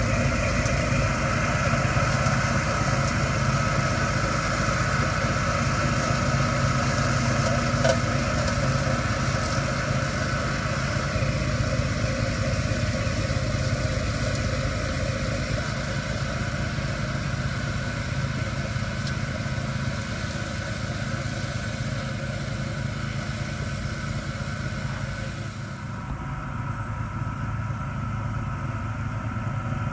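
Engine of a tow-behind brush mower rig running steadily at a constant speed. Near the end the high hiss drops away and the sound gets a little quieter.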